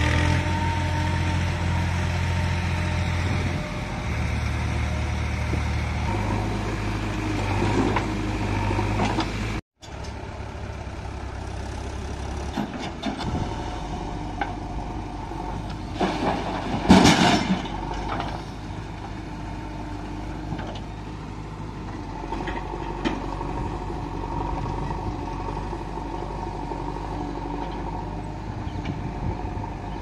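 JCB 3DX backhoe loader's diesel engine running under working load, its note stepping up and down as the digging hydraulics work. The sound drops out briefly about ten seconds in, after which the engine runs quieter. Around seventeen seconds in there is a loud burst of noise as a bucket of soil is tipped into a tractor trolley.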